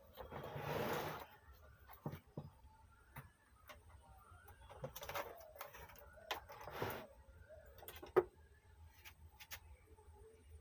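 Scattered small clicks and knocks with a few short scrapes: hand tools working on the amplifier's chassis while a bridge rectifier is removed. The sharpest knock comes about eight seconds in.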